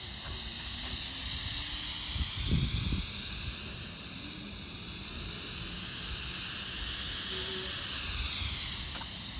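Smoke bomb firework hissing steadily as it jets out thick white smoke. A few low thumps come about two and a half seconds in.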